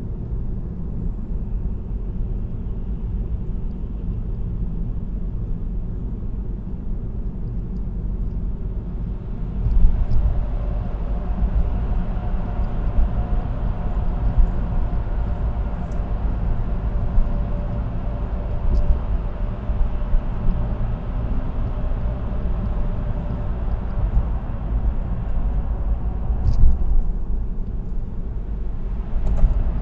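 Road noise of a car at expressway speed, heard through the windshield-mounted dashcam inside the cabin: a steady low rumble of tyres and engine. About ten seconds in, a brighter tyre hiss with a faint whine joins it and eases off near the end.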